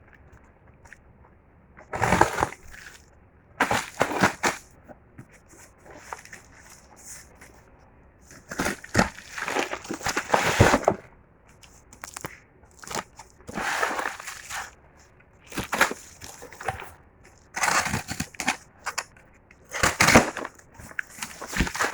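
Packaging being handled and opened: crinkling, rustling and tearing in irregular bursts, with a few sharper clicks.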